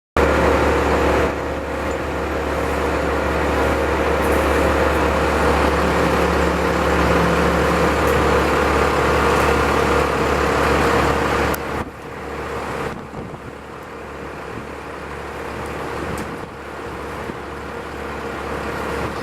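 A large engine running steadily, most likely tree-service machinery or a truck; about twelve seconds in it drops sharply to a quieter level and keeps running.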